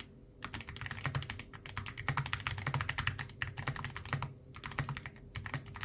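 Fast typing on an Akko MOD007B HE hall-effect keyboard with Akko Cream Yellow magnetic switches and PBT cherry-profile keycaps: a quick run of key clacks, broken by a few short pauses.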